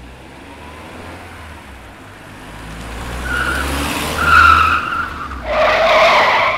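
Car approaching with a low engine rumble that grows louder, tyres squealing, then a loud skid as it brakes hard to a sudden stop near the end.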